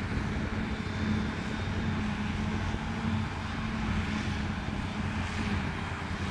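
Diesel engine of heavy farm machinery running at a steady speed, a constant low drone with some wind-like noise over it.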